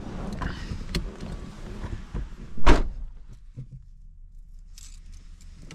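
A car door slammed shut with one loud thunk about two and a half seconds in, after some lighter clicks and handling noises.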